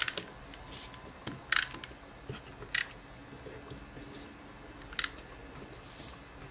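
A handful of short sharp clicks, a second or more apart, from an adhesive tape runner and small cardstock circles handled on a paper-crafting work surface.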